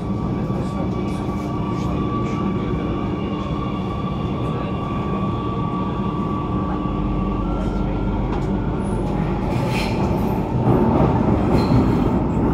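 Alstom Metropolis C830C metro train running, heard from inside the car: a steady rumble with a thin electric whine, which steps up slightly in pitch about seven seconds in. The running noise grows louder near the end.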